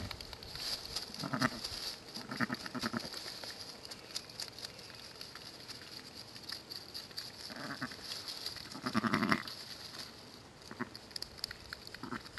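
A ewe making several short, low, pulsing calls to her newborn lamb while licking it, the maternal murmur a ewe uses to bond with a lamb just after birth. The loudest call comes about nine seconds in, with faint rustling and clicks from the dry leaves between the calls.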